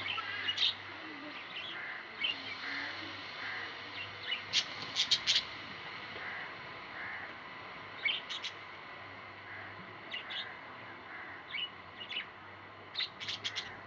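Parrots calling in short chirps scattered through, over a steady background hiss, with the loudest run of calls about five seconds in and further bursts later on.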